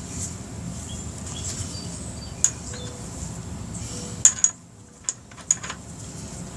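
Sharp, irregular metal clinks, about six of them, as the rear axle adjuster plate and its hardware are handled and fitted on a motorcycle swingarm, over a steady low hum.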